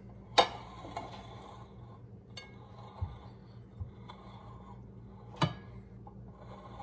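Wide ceramic serving bowls being moved and set down on a granite countertop: a sharp clink soon after the start, a few lighter knocks and faint scraping, and another clink about two-thirds of the way through.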